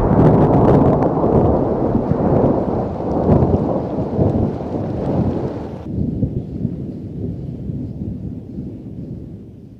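Rolling thunder over rain: a long, deep rumble, loudest in the first few seconds, then fading away, with the higher hiss cutting off about six seconds in.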